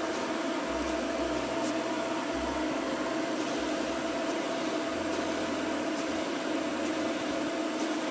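Professional pet blower dryer running steadily: a constant rush of air over a steady motor hum.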